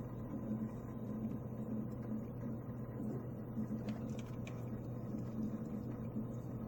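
Steady low hum of a running desktop computer, with a few faint clicks around the middle.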